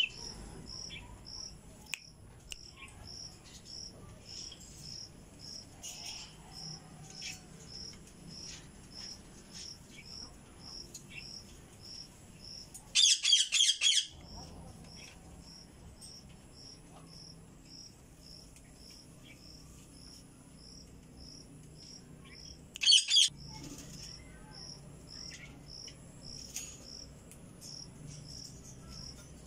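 Indian ringneck parrot giving two bursts of high-pitched, rapidly repeated screeches: one about a second long near the middle, a shorter one about ten seconds later. Under them a cricket chirps steadily, two or three pulses a second.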